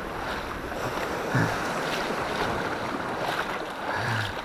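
Small waves washing in on the shore of a calm sea, a steady rush of surf with wind on the microphone.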